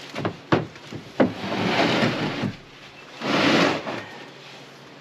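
A Turbo 350 automatic transmission being dragged across a pickup truck bed: a few sharp knocks and clunks, then two scraping slides of about a second each.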